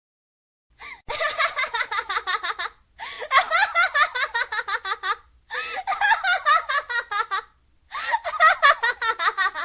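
High-pitched laughter in four bouts of rapid giggling, each about two seconds long, with short breaks between them.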